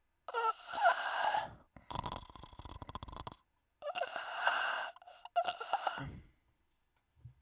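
A man's exaggerated snoring: wheezy, gasping breaths with a rattling snore between them, about four bursts in all.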